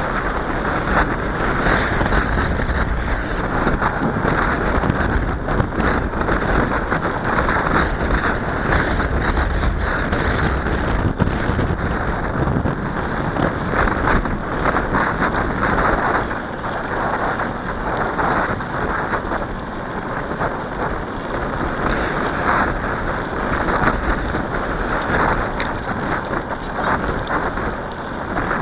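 Steady wind rush and tyre noise from a bicycle ride, with low buffeting rumble from wind on the microphone that eases a little after about 16 seconds.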